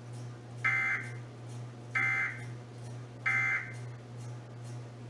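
Three short, harsh bursts of Emergency Alert System SAME data tones, about 1.3 seconds apart: the end-of-message code that closes the EAS test. A steady low hum runs underneath.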